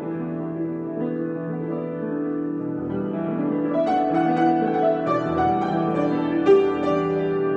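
Improvised solo piano playing slow sustained chords under a melody line, with a slightly louder note accented near the end.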